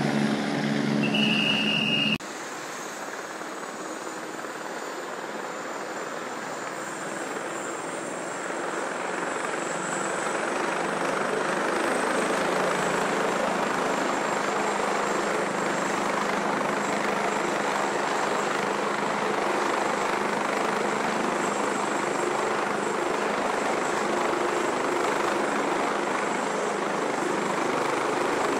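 A helicopter in flight overhead for the first two seconds. Then a Sécurité Civile Eurocopter EC145 sits on the ground with its turbines running: a steady rushing noise with a thin high whine, growing louder over the first ten seconds or so and then holding steady.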